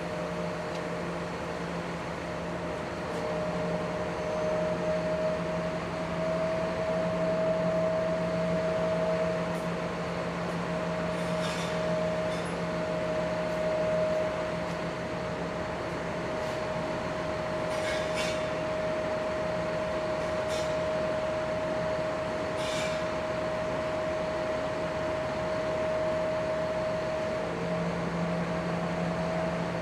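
An engine running at a steady speed, a constant hum with a few faint clicks.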